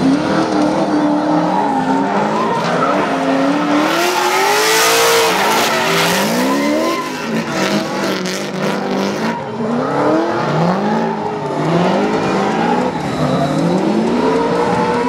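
Drift cars sliding through a run: engines revving up and down again and again as the drivers work the throttle, with tyres squealing and skidding. The tyre noise is loudest about four to six seconds in.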